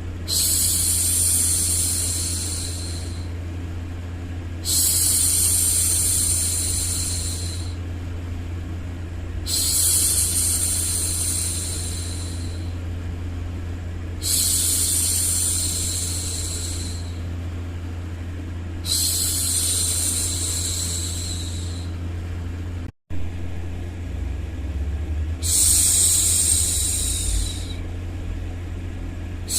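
A woman's voice shushing 'shhh' to soothe a baby: six long shushes, each about three seconds, repeating about every five seconds over a steady white-noise bed with a low hum. The sound cuts out for an instant about two-thirds of the way through.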